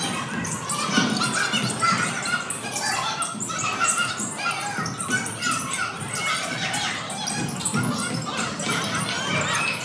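Basketball sneakers squeaking on a hardwood gym floor during live play, many short squeaks mixed with players' calls echoing in the gym.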